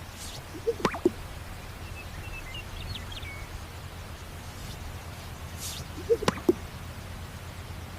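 A bird giving an odd call twice, about five seconds apart. Each call is a short low note, a very fast sweep down from very high to low, then another low note. Faint high chirps are heard in between.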